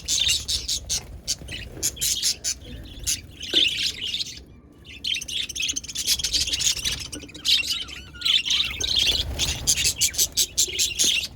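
Several budgerigars chirping in rapid, dense runs, with a short pause about four seconds in.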